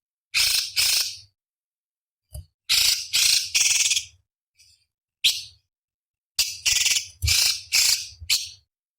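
Cucak cungkok, a leafbird, calling in short harsh rasping bursts. The calls come singly or in quick runs of two to four, with brief pauses between them.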